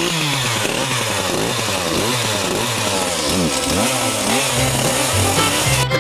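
Chainsaw clearing brush, revved up and let drop again and again as it cuts, its pitch rising and falling about twice a second.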